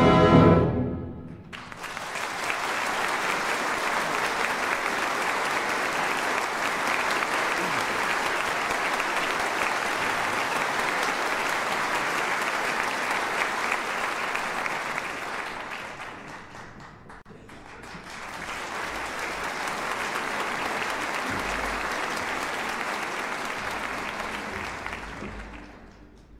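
Theatre audience applauding as the orchestra's final chord dies away. The clapping eases off about sixteen seconds in, swells again in a second round and fades out near the end.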